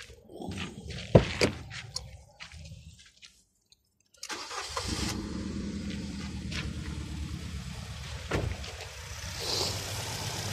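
Several clicks and knocks, a short near-silent gap, then about four seconds in the Nissan Tiida's four-cylinder engine starts and settles into a steady idle. The engine is misfiring on cylinder 3, which is later traced to a spark plug shorted out by oil.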